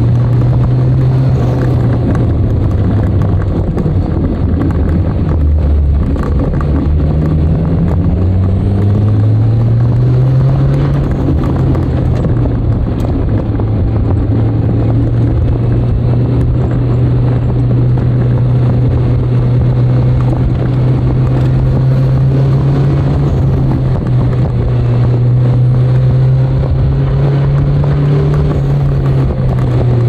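Nissan Skyline DR30 RS Turbo's FJ20ET turbocharged four-cylinder engine running under way. The engine note dips about six seconds in, climbs again over the next few seconds, holds steady, and falls off near the end.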